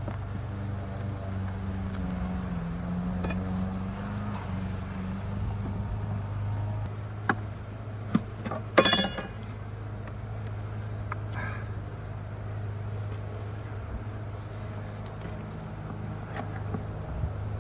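Wooden hive frames knocking and clicking as they are pushed into a beehive box, loudest in a short cluster about nine seconds in, over a steady low hum.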